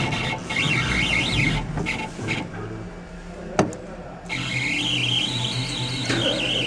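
AccTek AKM6090 CNC router moving its axes, its drive motors giving a whine that rises and falls in pitch, in two stretches. Between them comes a single sharp click.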